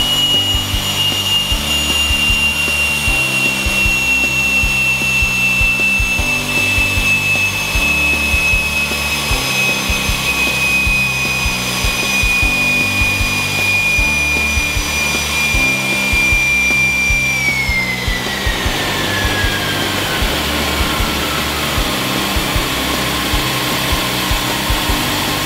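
Pratt & Whitney PT6A-42A turboprop turned over on its starter for a compressor wash: a high, steady turbine whine that eases slightly. About 17 seconds in it starts falling away as the starter is cut and the compressor spins down.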